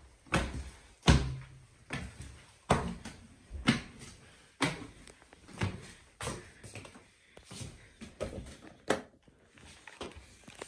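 Footsteps climbing wooden stairs and walking on, about one dull knock a second.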